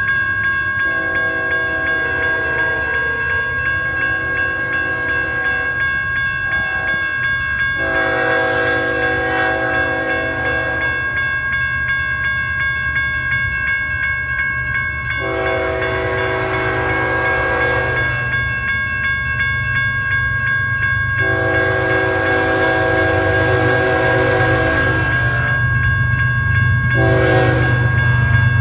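A grade-crossing warning bell rings steadily while an approaching diesel locomotive sounds its multi-chime air horn in repeated long blasts, with a shorter blast near the end. The locomotive's low rumble grows louder as it nears the crossing.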